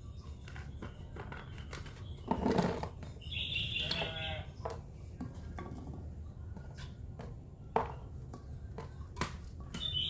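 Scattered clicks and knocks, with a short pitched bird-like call about three and a half seconds in.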